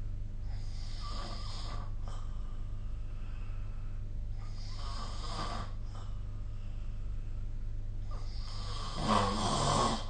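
A person snoring in sleep: three snores about four seconds apart, the last one the loudest, over a steady low hum.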